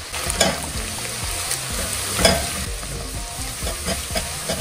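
Chopped onions and grated garlic frying in oil in a stone-coated pot, sizzling steadily, while a spoon stirs through them and scrapes the pot, most sharply about half a second and two seconds in.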